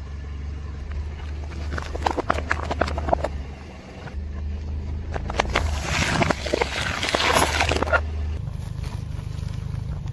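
Car tyre rolling over and crushing crunchy objects: a run of sharp cracks and snaps, then a longer crunching about halfway through, over the low hum of the car's running engine.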